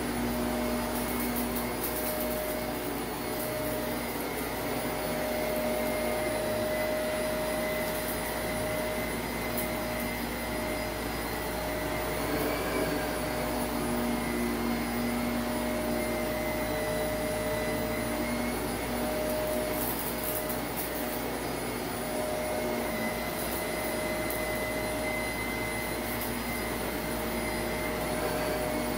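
Shark Navigator upright vacuum running steadily over a shag rug, its motor hum holding an even whine. A few faint, brief crackles come through, the light crunch of grit being picked up.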